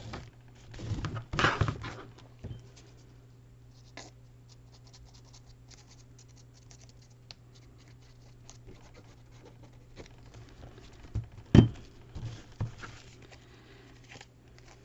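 Paper being handled on a craft desk: rustling and scratching about a second in, then faint light ticks, and a sharp tap with a few smaller knocks a little past eleven seconds.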